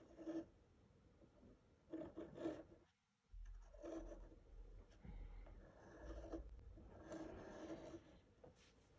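Compass lead scratching on drawing paper as it draws a circle, in several short, faint strokes.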